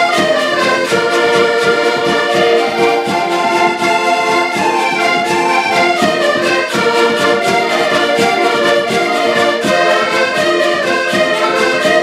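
Several diatonic button accordions playing a brisk folk tune together in harmony, with a bass drum beating a steady pulse underneath.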